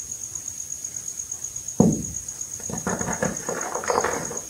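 Reformed gym chalk balls being crushed by hand in loose chalk powder: a dull thump a little under two seconds in, then about a second and a half of crumbly, powdery crunching as the chalk breaks apart between the fingers. A steady high pulsing trill runs underneath throughout.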